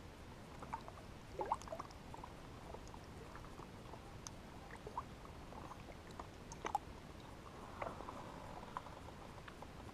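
Faint small splashes and drips of lake water as a bass held in the water beside a kayak is released, with scattered light clicks and splashes, the strongest about one and a half seconds in and again near seven seconds.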